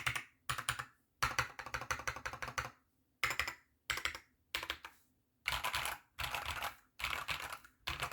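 Typing on a mechanical keyboard with Akko Ocean Blue switches in a bamboo case, in quick runs of keystrokes broken by short pauses. The clicks are loud and clacky.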